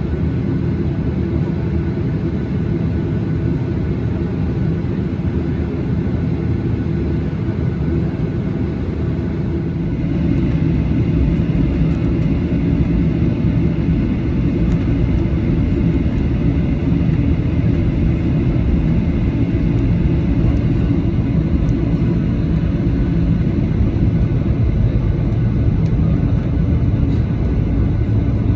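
Boeing 737-800's CFM56 jet engines running with a steady rumble and faint whine, growing louder about ten seconds in and then holding.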